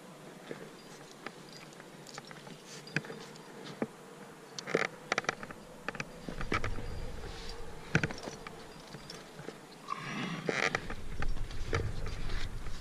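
Close handling noise of climbing gear: scattered clicks, clinks and scrapes, with a low rumble coming in about halfway through and again near the end.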